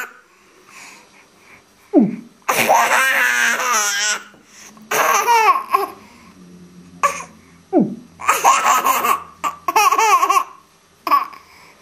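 Baby girl laughing hard in repeated bursts, with short pauses for breath between them.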